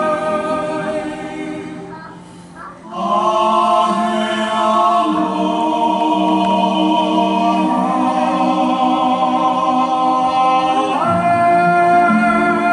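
Live singing of a Hawaiian hula song, with long held notes. The voice fades about two seconds in, comes back after a short break about three seconds in, and steps up in pitch near the end.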